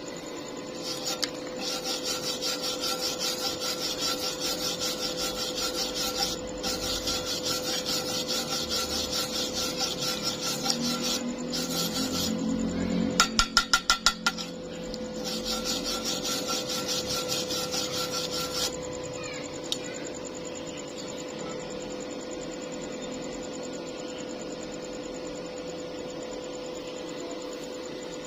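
Rhythmic rasping on metal, as from a file or wire brush worked back and forth about two to three strokes a second. It is broken around the middle by a quick run of about eight sharp taps. After that only a steady hum remains.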